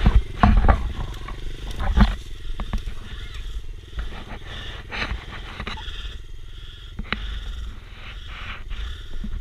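Small dirt bike engine idling steadily, with several sharp knocks and thumps in the first two seconds.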